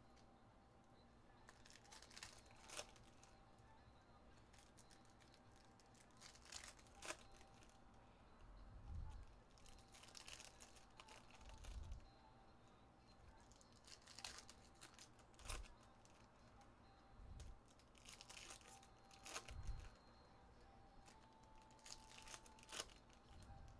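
Faint crinkling and tearing of foil trading-card pack wrappers being ripped open by hand, in scattered bursts, with a few soft low thuds as packs and cards are handled on the table.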